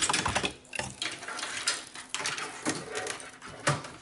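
Handling noise as a power supply is test-fitted into a Dell OptiPlex 990's steel case: its bundled cables rustle, the plastic connectors clack against each other, and the case clanks. The result is an irregular run of short clicks and knocks.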